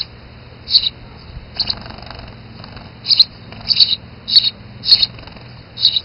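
Sparrow chirping: a run of about eight short, high chirps, repeated every half second to a second.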